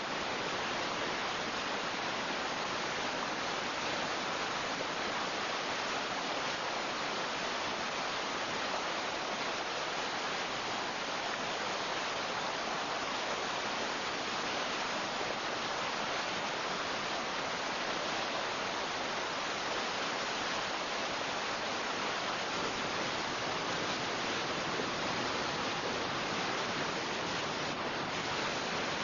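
Steady, unbroken rush of water in heavy rain, an even noise with no let-up.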